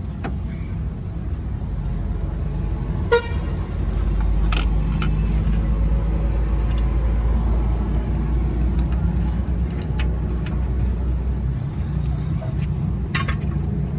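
Toyota 3Y inline-four petrol engine idling steadily while its distributor timing is being set. A short, sharp pitched blip comes about three seconds in, and a few faint clicks come later.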